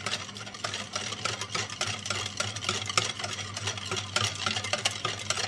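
Wire balloon whisk beating a runny egg-and-oil cake batter in a glass bowl, a quick, uneven run of clicks as the wires knock the glass.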